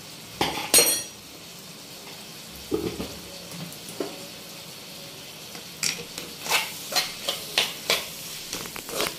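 A metal spoon clinks against the pan with a short ring about half a second in. From about six seconds in, a spoon scrapes quickly around the pan, stirring the chilli powder and salt into the boneless chicken, over a faint steady sizzle.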